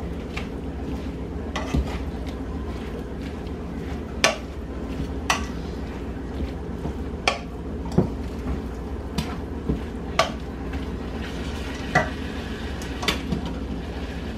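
Wooden spoon stirring and tossing diced chicken and broccoli in a ceramic-coated skillet. About a dozen irregular clacks of the spoon against the pan sound over a steady low background.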